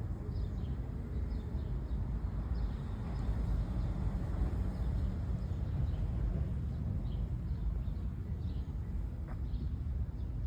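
Outdoor background noise: a steady low rumble, like wind or distant traffic, with faint short high chirps scattered through.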